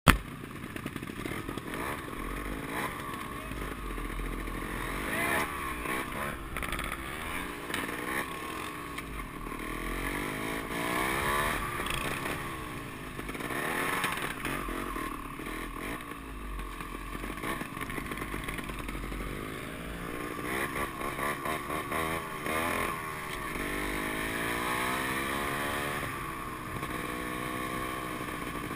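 Trials motorcycles being ridden along a road, their engines revving up and down again and again as the throttle is opened and closed.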